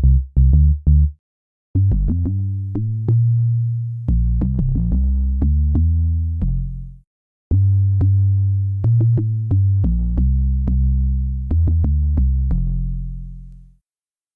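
Electronic bass sample loops: a few short clipped low notes end about a second in, then after a brief gap a new bass phrase of held, deep notes with sharp attacks plays twice and stops shortly before the end.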